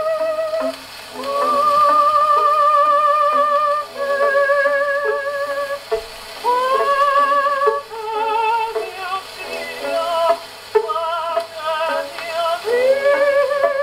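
HMV 102 portable wind-up gramophone, freshly repaired, playing a shellac 78 record acoustically: a melody of long held notes with strong vibrato over a shorter-note accompaniment, heard thin and without deep bass, with surface hiss.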